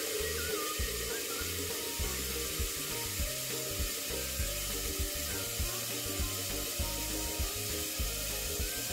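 Tap water running steadily into a pot, a continuous hiss, over background music with a steady beat.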